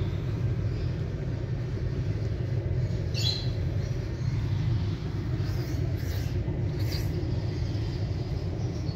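Steady low background rumble, with a brief high rising chirp about three seconds in.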